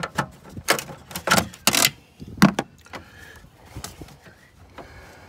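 Handling of wiring and plastic connectors in a car's engine bay: a string of short knocks, clicks and scrapes as a sensor lead is pulled and moved about.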